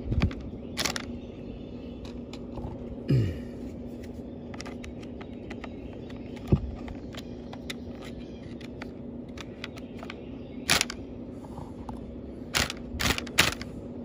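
Plastic louver slats being fitted back into a dryer vent hood, with a handful of sharp plastic clicks and snaps, several in quick succession near the end. A steady low hum runs under them.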